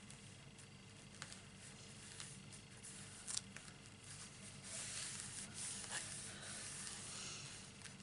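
Faint paper handling: light taps and rustles as a cut-out paper mask is laid over a stamped image, then a longer soft rustle from about halfway in as it is pressed and smoothed flat by hand.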